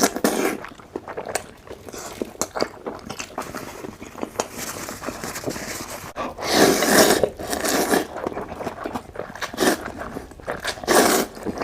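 A person biting and chewing food close to the microphone, with many small sharp clicks and louder spells about six and a half seconds in and again near the end.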